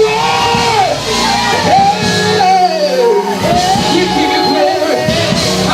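Live gospel praise music: a band playing sustained chords and bass notes while a voice sings and shouts in long bending lines over it.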